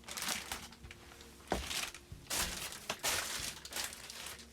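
A string of short rustling and crinkling handling noises, irregular, with a few sharper knocks, over a faint low hum.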